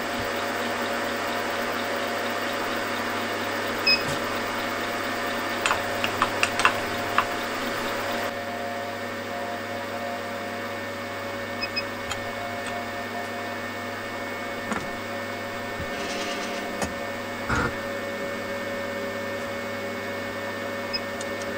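Milling machine spindle running steadily with an edge finder in the collet: a steady whine over a low hum, with a few sharp clicks, several of them close together about six to seven seconds in.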